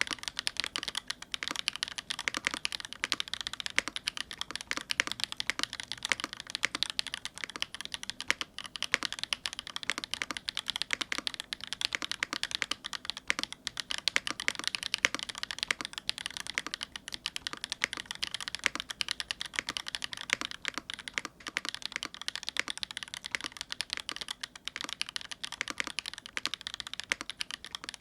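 Fast, continuous typing on a full-aluminium, gasket-mounted AK75 mechanical keyboard with Tropical Waters linear switches and GMK keycaps: a steady stream of key strokes and bottom-outs.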